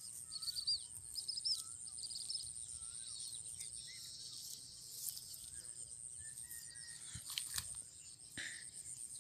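Birds chirping, with short calls repeating about once a second and a few quick trills in the first two seconds, over a steady high-pitched insect drone. A few faint clicks near the end.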